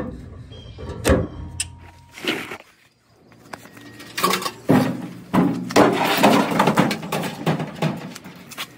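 Maytag dryer drum being handled and set back into the cabinet: a couple of sharp clicks, a brief gap, then from about four seconds in a run of irregular clunks, knocks and scraping rattles of sheet metal.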